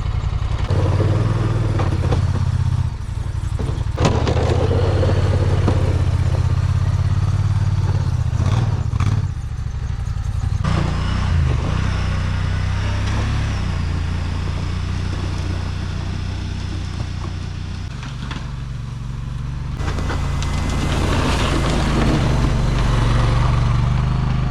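Engine of a snowplow vehicle running and working as it pushes snow, its drone shifting in level several times. There is a sharp knock about four seconds in and a few clunks a few seconds later.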